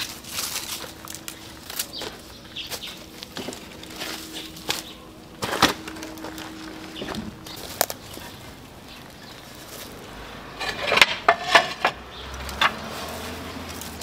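Old terracotta barrel roof tiles and weathered wooden boards being shifted and handled on a pile: scattered knocks and clinks, with a quick run of clay-on-clay clatters about eleven seconds in.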